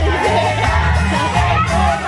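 Loud dance music with a heavy pulsing bass beat and a singing voice.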